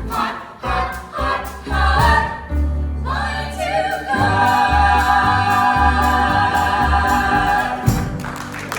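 Gospel choir singing a cappella in close six-part harmony, closing on a long held chord that stops about a second before the end.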